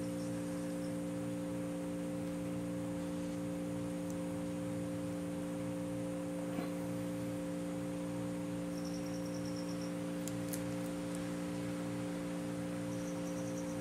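Steady low electrical hum made of several constant tones, with a faint click about six and a half seconds in.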